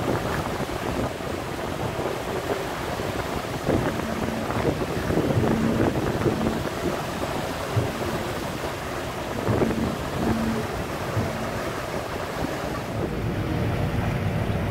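Wind buffeting the microphone aboard a motor ship under way, over a steady rush of water and engine noise.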